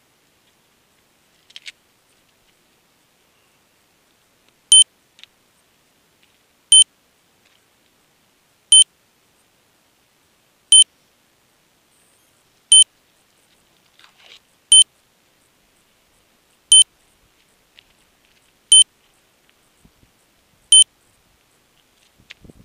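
An electronic beeper sounding a short, high, loud beep every two seconds, about ten times from a few seconds in. Faint rustling and handling noise come near the end.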